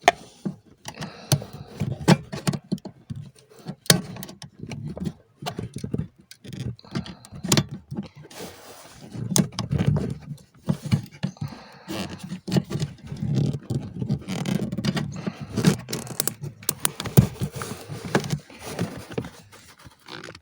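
Hands unclipping and pulling electrical connectors off car control units: a run of sharp plastic clicks, knocks and scraping, with rustling handling in between.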